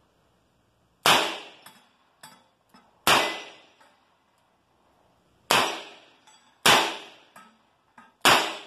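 Five revolver shots from a Smith & Wesson Military & Police .38 Special, fired at an uneven pace about one to two and a half seconds apart, with fainter knocks between the shots.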